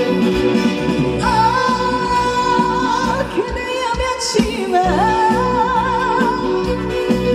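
Instrumental intro of a Korean trot song played back through a PA system. A lead melody enters about a second in with long held notes that waver, over a steady backing beat.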